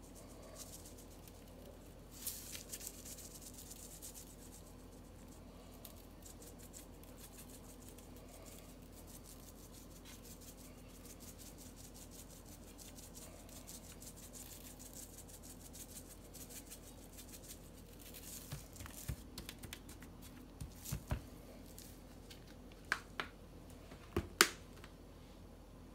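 Seasoning shaken from a shaker onto a raw rack of pork spare ribs on a metal sheet pan: a fast, light rattle and patter of granules. Several sharp knocks and taps come near the end.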